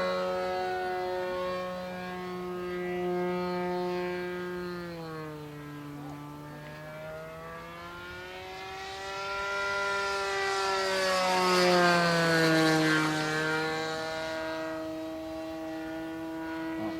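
A radio-control model plane's two-stroke glow engine, an O.S. 55, running steadily in flight. Its pitch drops as the plane passes by, twice, and it is loudest on the second pass, about twelve seconds in.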